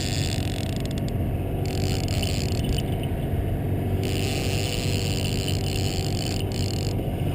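Boat engine running steadily at low speed, a constant low drone.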